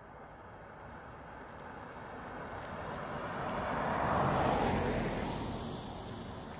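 An SUV approaching and driving past on a paved road, its tyre and engine noise swelling to a peak about four seconds in and then fading away.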